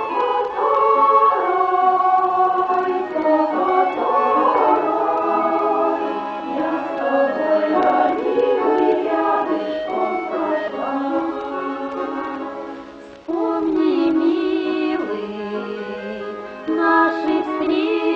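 Music from a song, with several melody lines over accompaniment. About 13 seconds in it fades briefly, then comes straight back at full level.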